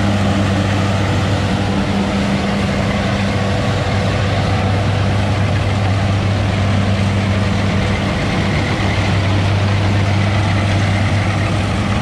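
Rice combine harvester running steadily at close range, an even low engine drone with the hiss of the cutting and threshing machinery.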